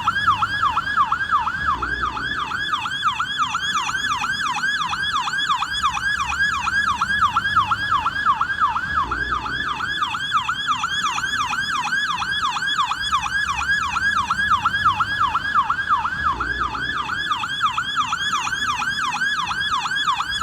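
American police car siren on the yelp setting: a fast, steady up-and-down wail, about three sweeps a second, with a faint low rumble underneath.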